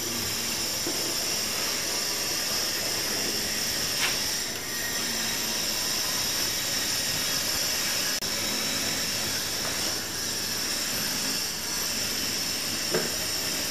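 A steady machine-like drone with a high hiss, broken by a short knock about four seconds in and another near the end.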